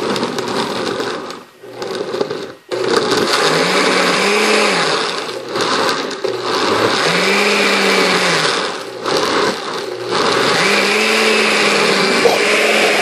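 Countertop electric blender running, puréeing cooked guajillo chiles, garlic and onion with water into a sauce. The motor cuts out briefly twice near the start, then runs steadily, its low hum rising and falling in pitch three times as the mixture churns.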